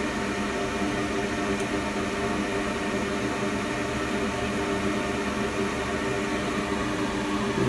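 Steady hum and whir of running bench equipment, with several steady tones held throughout and no change in level.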